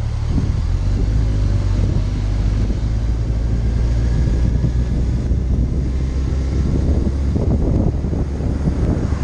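A vehicle engine running steadily at road speed, a low drone, with wind buffeting the microphone.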